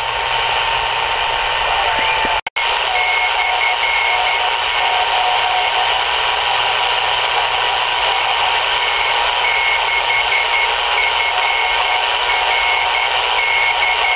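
Static hissing from the speaker of a Kaito KA1102 shortwave receiver tuned to an empty band. Through it runs a faint steady whistle and a higher tone that cuts in and out. The audio mutes for an instant about two and a half seconds in as the radio is retuned.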